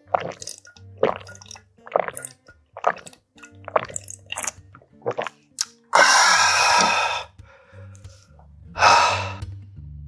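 Gulping soybean-paste stew broth from a stainless steel pot, about one swallow a second, then two long breathy exhales after drinking. Soft background music plays underneath.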